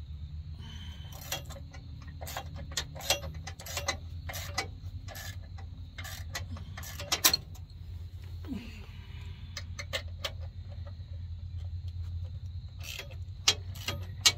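Irregular metallic clicks and clinks from a wrench working the mounting nuts and bolts of a Sumo Spring on the chassis, some in quick runs, over a steady low hum.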